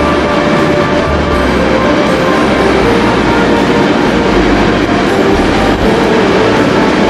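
A Class 66 diesel locomotive hauling a container freight train rolls past, its engine and wagon wheels sounding steadily, with background music playing over it.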